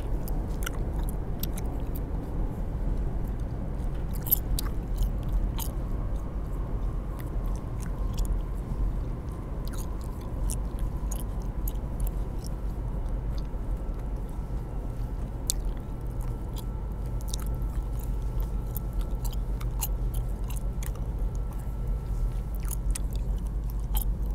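Chewing gum worked close to the mouth, with irregular wet clicks and snaps, over the steady low rumble of a moving train carriage.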